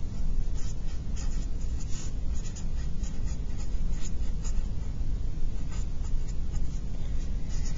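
Black felt-tip pen writing on paper: a quick, uneven run of short scratchy strokes over a steady low rumble.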